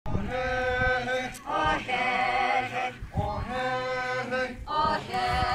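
A group of voices singing a traditional chant in unison, unaccompanied, in phrases of long held notes with short breaks between them.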